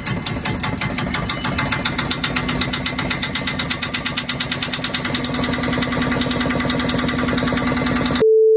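Sailboat's auxiliary inboard engine running steadily with an even, rapid firing rhythm, on test after its exhaust mixing elbow was repaired. A short, loud, steady beep cuts in near the end.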